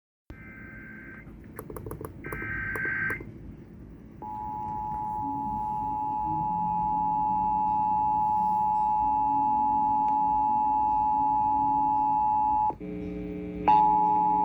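Emergency Alert System broadcast for a tornado warning: two short buzzy data bursts of the alert header, with clicks between them, then the steady two-tone attention signal from about four seconds in. The signal breaks off briefly about two seconds before the end and comes back.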